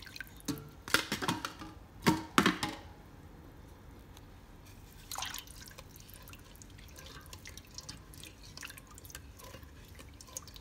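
Milk trickling in a thin stream into a stainless saucepan of butter-and-flour roux for béchamel, with a few sharp knocks in the first few seconds. Then a wooden spoon stirs the sauce in the pan with faint scrapes and ticks.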